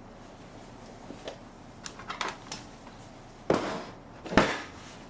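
Packaging being handled during an unboxing: a few light clicks and taps, then two louder knocks about a second apart.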